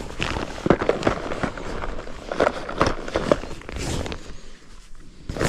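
Close handling noise from fishing gear: an irregular run of clicks, knocks and rustles, the sharpest about a second in and again at the very end.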